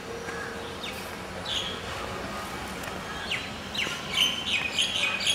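Birds chirping: short, high, falling chirps, a few at first, then a quick run of them from about three seconds in.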